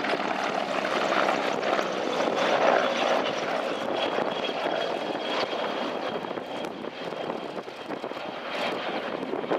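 Large multi-bladed transport helicopter flying past low, its turbines and rotor making a steady loud noise that peaks about three seconds in and then eases as it moves away. A thin high whine rides on top from about four seconds in.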